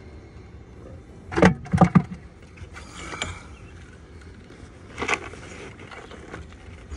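A few loud knocks and thumps on a fishing boat, bunched about a second and a half in, then a brief rushing hiss and one more knock near the end.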